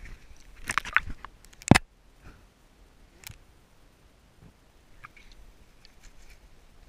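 Handling noise on a waterproof action-camera housing as it is dipped into the lake: a quick run of clicks and knocks, the sharpest just under two seconds in, another knock a little later, then only faint ticks.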